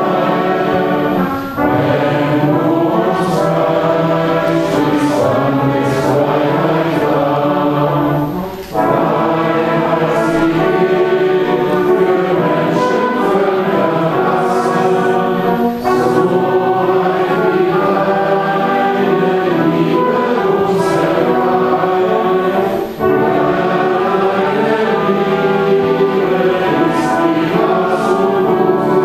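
A church congregation singing a hymn together. The singing is sustained, with a short break for breath between lines about every seven seconds.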